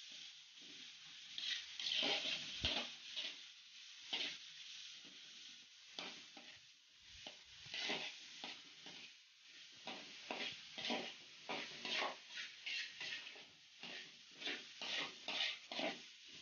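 Slotted metal spatula scraping round a large aluminium wok in repeated quick strokes, stirring spice paste, with a light sizzle of the paste sautéing in oil.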